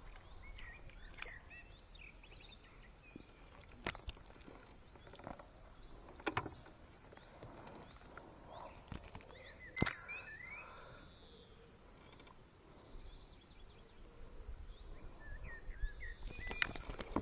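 Small birds chirping in short calls, with a few sharp clicks or knocks between them, the loudest about ten seconds in.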